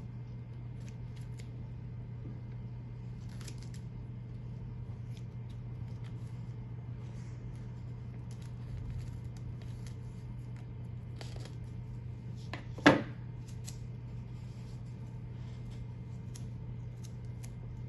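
Small scissors snipping slits into transfer paper and a vinyl stencil: faint, scattered short snips, with one sharp, much louder click about two-thirds of the way through. A steady low hum sits underneath.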